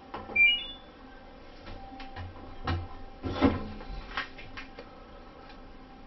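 LG Direct Drive front-loading washing machine playing its quick three-note rising beep as the start button is pressed, followed by a run of clicks and knocks from the machine as its cycle starts, the loudest knock about three and a half seconds in.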